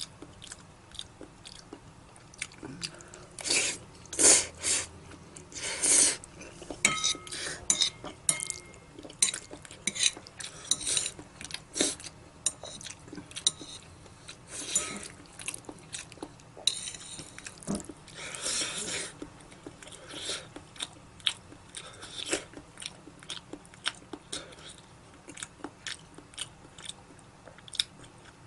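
Someone eating Buldak and Jjolmyeon noodles: close-up chewing, with frequent small clicks of utensils against a dish and several louder half-second bursts of eating noise.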